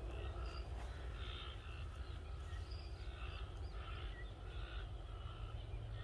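Rural outdoor ambience: short chirping calls repeating about one to two times a second, with a few faint higher chirps, over a steady low rumble.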